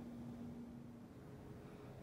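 Faint room tone with a low steady hum that stops about halfway through.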